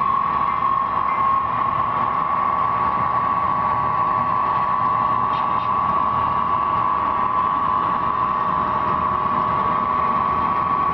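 HO-scale model freight train running past behind model diesel locomotives: steady mechanical running noise with a constant high tone over it.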